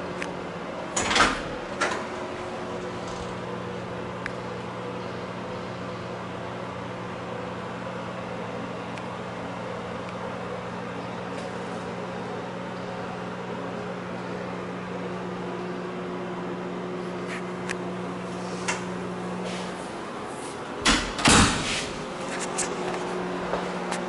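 Closet door being handled: knocks about a second in and a louder clatter near the end, over a steady low hum.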